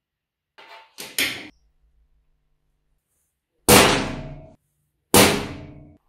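Two loud metallic clanks from a small metal block against a metal workbench, about a second and a half apart, each ringing briefly and dying away. Lighter clicks and taps of handling the block come first.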